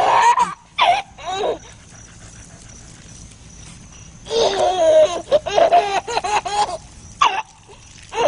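A toddler laughing and a collie-type dog barking, in short excited bursts, with a longer run of quick pitched calls around the middle.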